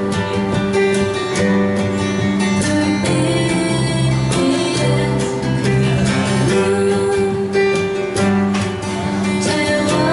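A song played on strummed acoustic guitar, with a singing voice over it.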